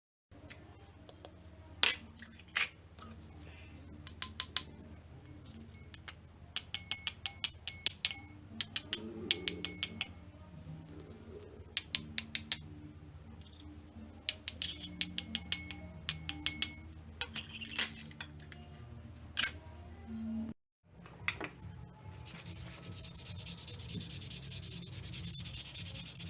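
Soft background music with runs of sharp clicks and clinks. About 22 seconds in, a steady abrasive rubbing starts: sanding on the metal jewellery box being restored.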